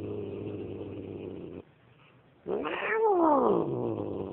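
Tabby cat growling at a dog. A low, steady growl dies away in the first second and a half. After a short pause a yowl rises and falls in pitch, then sinks into another long, low growl.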